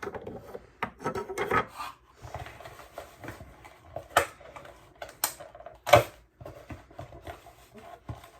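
Lightsaber hilt pieces being handled and set down: rubbing and rustling with scattered knocks, the loudest about six seconds in.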